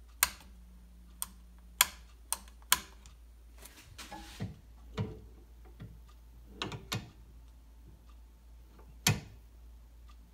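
Scattered faint clicks and light knocks at irregular intervals, about a dozen, over a low steady hum.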